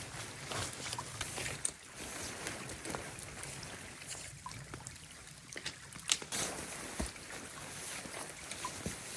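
Water running and trickling, with scattered light ticks and taps throughout.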